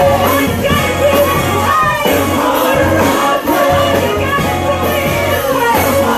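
Gospel praise-and-worship song: lead and backing singers over a band with bass and drums.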